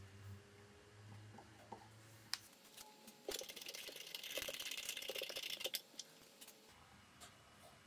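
A hand screwdriver driving a screw into a 3D-printed plastic part: a dense run of fine, rapid clicking and scraping lasting about two and a half seconds in the middle, with a few light knocks around it.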